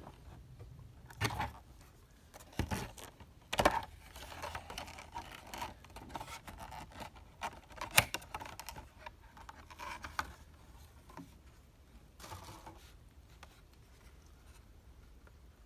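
Clear plastic protector case being opened and a carded Hot Wheels car worked out of it by hand: scattered sharp plastic clicks and snaps, the sharpest about eight seconds in, between stretches of scraping and rustling.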